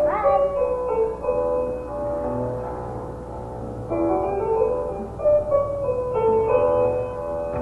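Piano music: a slow melody of held notes, with a low bass note sounding about two to four seconds in.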